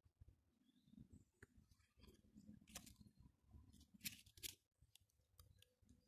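Near silence: faint handling noise from a handheld phone, a low rumble with a few soft clicks and rustles.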